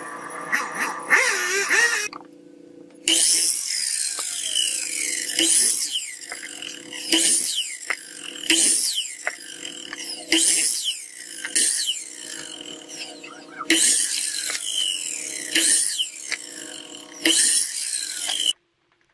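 Sliding compound miter saw running and cutting a pine board again and again, one cut about every second and a half. The sound stops suddenly near the end.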